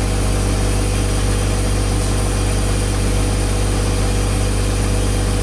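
Steady mechanical drone of running machinery: a constant low hum with an even hiss over it.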